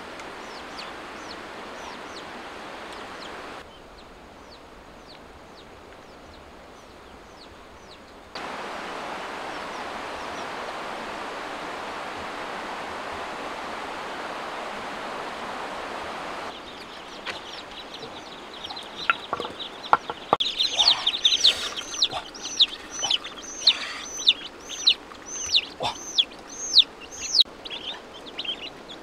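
A flowing river's steady rush, then young chicks and ducklings peeping while they feed. The peeps are many short, high calls, about two a second, and fill the second half.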